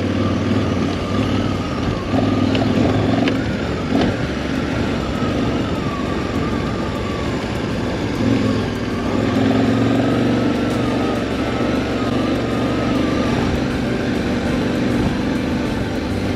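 KTM 1190 Adventure's V-twin engine running steadily as the motorcycle is ridden along a dirt trail, its note wavering slightly.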